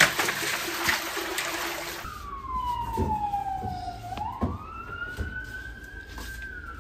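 Ice water poured from a plastic bucket into a steel mixer bowl, splashing with ice clattering for about two seconds. Then a siren wails: falling in pitch, rising again about four seconds in, then slowly falling.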